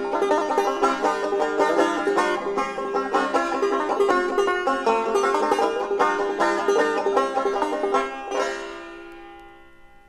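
Instrumental ending of an old-time folk song: banjo and guitar picking a quick run of plucked notes, then a final chord about eight seconds in that rings and fades away.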